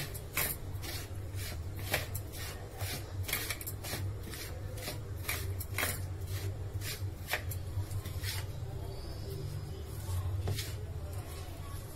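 A hand rubbing and stirring dry wheat flour and semolina in a plastic bowl: irregular scraping, rustling strokes, about two a second, over a steady low hum.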